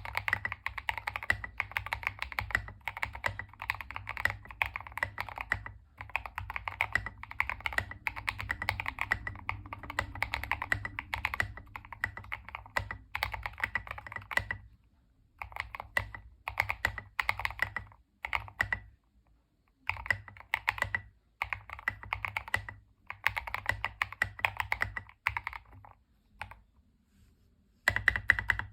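Fast continuous typing on a Tester 68 mechanical keyboard kit fitted with Fantasy DVA switches lubed with a Krytox 205/105 mix: a dense run of keystroke clacks, broken by a few short pauses in the second half before resuming.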